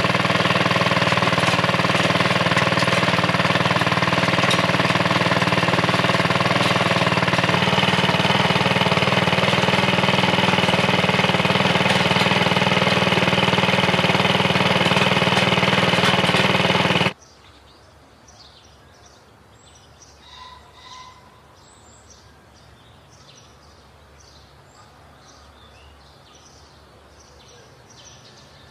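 Small gasoline engine of a garden tiller running steadily under load as its tines churn through soil. It cuts off abruptly a little past halfway, leaving faint bird chirps over a quiet outdoor background.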